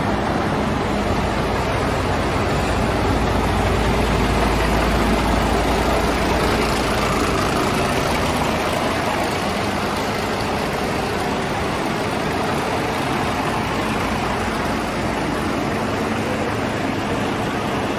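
Ford 1848T tractor unit's diesel engine idling steadily, with a heavier low rumble in the first few seconds that then settles.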